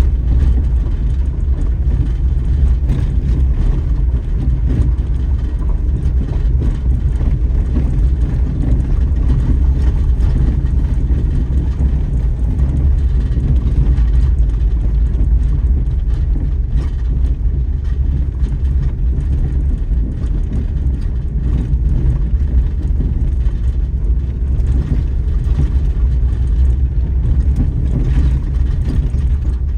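Daihatsu Terios Kid being driven on a forest road: a steady, low rumble of engine and tyres that runs on without a break.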